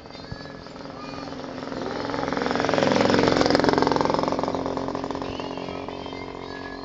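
A motor vehicle passing by: its engine grows louder, peaks about three seconds in, and fades away as its pitch drops.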